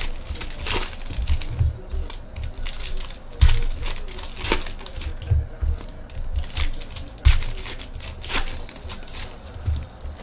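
Foil trading-card pack wrappers being torn open and crinkled by hand: irregular crackling with several sharp rips, mixed with dull low knocks of handling on the table.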